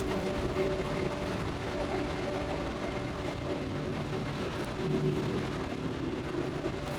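Steady hum and rumble of bakery machinery running, with a couple of constant low tones over an even noise.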